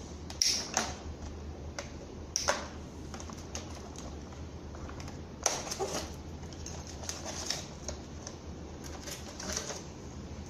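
Crib parts being handled and fitted together by hand: irregular sharp clicks and knocks, some in quick pairs, over a steady low hum.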